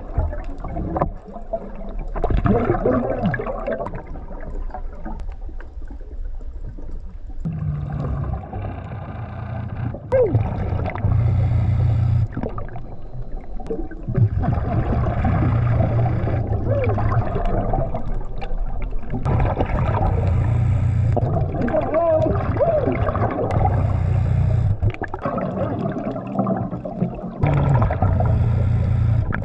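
Scuba diver breathing through a regulator underwater: exhaled bubbles rumble and gurgle in bursts of a few seconds, with short pauses between them for the in-breath.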